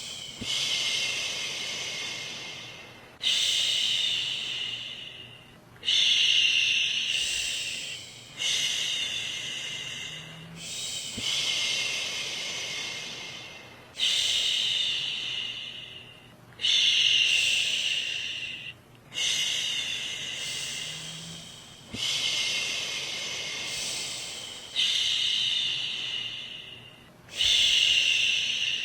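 A woman's voice shushing "shhh" to soothe a baby to sleep. Long hissing shushes follow one another every two to three seconds, each starting loud and trailing off.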